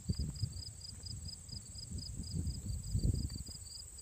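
Insects chirping in a steady rhythm of about six chirps a second over a continuous high buzz, with an uneven low rumble underneath.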